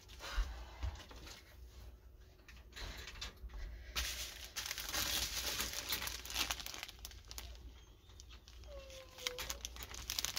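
Plastic crinkling as a sheet of sealed diamond-painting drill bags is picked up and handled, loudest for a few seconds in the middle, amid softer rustling. Near the end a dog gives one short whine.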